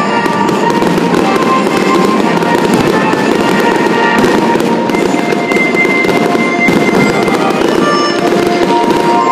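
Aerial fireworks shells bursting one after another in a dense, continuous crackle, with music playing along.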